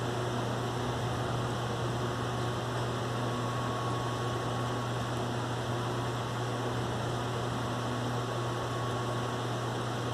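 Steady hiss with a constant low hum, unchanging throughout; no thunderclap is heard.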